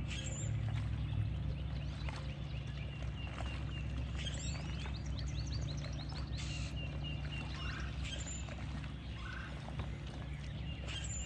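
Birds chirping and singing, with trills and repeated high notes scattered throughout, over a steady low rumble.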